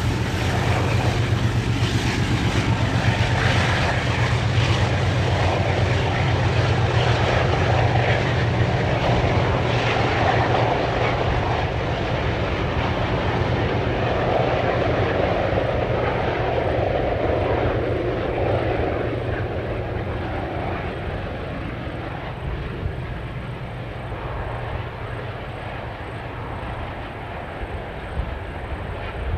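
Two ALCO diesel-electric locomotives, a NSW 44 class and a 45 class, working hard at the head of a passenger train, giving a loud, steady low engine drone. The sound fades over the second half as the train draws away.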